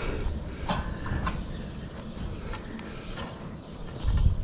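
Caulking gun being worked to lay sealant along metal-roof chimney flashing: a few scattered clicks from its trigger and ratchet, over a low rumble that grows louder near the end.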